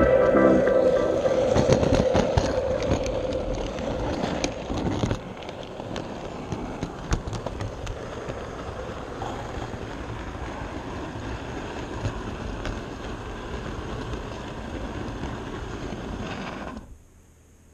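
Music fades out over the first few seconds, leaving an H0-scale model train running along its track, heard from a camera riding on the train: a steady rolling noise with scattered sharp clicks. It cuts off suddenly near the end.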